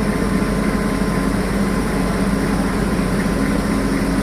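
Heavy diesel engine running steadily.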